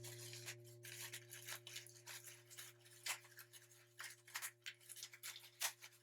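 Faint, scattered rustling, rubbing and soft clicks of hands opening and handling a package of acoustic foam, over a steady low hum.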